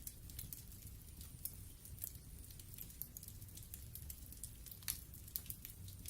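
Log fire burning in a fireplace: a low, soft rumble under many small, irregular crackles and pops. The loudest pops come about a second and a half in and just before five seconds.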